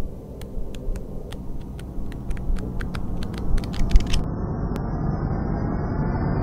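Intro sound effect: a low rumbling noise with sharp crackling clicks that come faster and faster, then about four seconds in the clicks stop and a muffled noise swells steadily.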